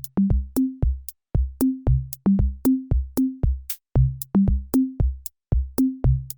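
Electronic drum-machine music: a fast, even beat of bass-drum hits, about four a second, with short pitched drum notes stepping up and down between a few low pitches.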